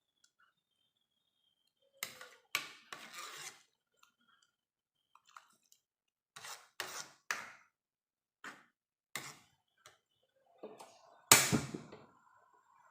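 A kitchen utensil clattering against cookware in a string of separate knocks and clinks. The loudest knock comes near the end.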